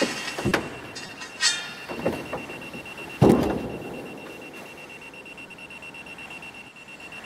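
Altar bells rung at the elevation of the chalice: several sharp ringing strikes in the first few seconds, with a louder, deeper strike about three seconds in that rings away.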